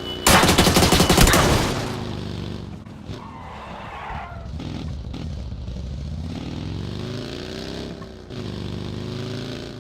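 A vehicle engine being revved: a loud burst of rapid cracking lasting about a second and a half near the start, then the engine running with its pitch rising and falling as it is revved again.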